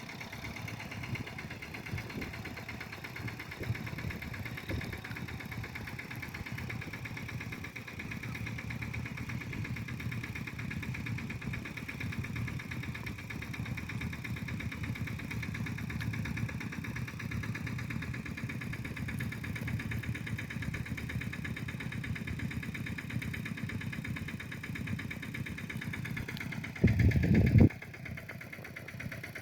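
Kubota tractor's diesel engine running steadily while ploughing a paddy field. Near the end, a brief, much louder low rumble or bump lasts under a second.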